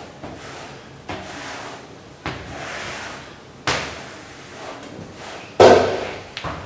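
Several sharp knocks and bangs, roughly one every second or so, each with a short echoing tail in a tiled washroom; the loudest bang comes near the end.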